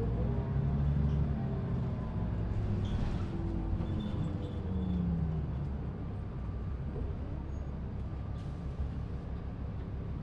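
A 2005 New Flyer D40LF diesel transit bus with a Cummins ISL engine and ZF Ecomat II automatic transmission running. Its drivetrain tones glide in pitch, and it goes quieter and steadier after about six seconds.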